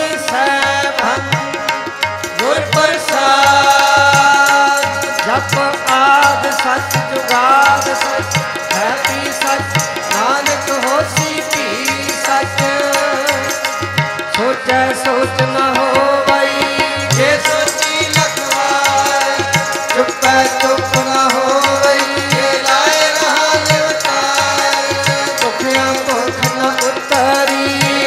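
Sikh kirtan music: harmoniums playing a melody over a steady tabla rhythm.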